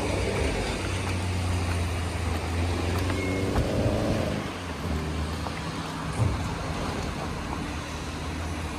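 Steady motor-vehicle noise: a low engine hum over an even wash of road noise, with a brief high beep about three seconds in.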